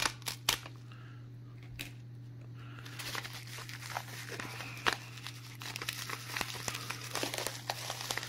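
Plastic bubble-wrap packaging crinkling and rustling as it is handled and unwrapped. There are a few sharp clicks in the first second, and the crinkling turns continuous from about three seconds in, over a steady low hum.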